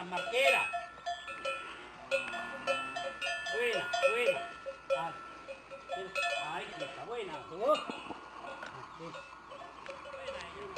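Cowbells hung from the necks of a yoked pair of cattle, clanking and ringing irregularly as the animals shift about. Short rising-and-falling animal calls come in among the clanks.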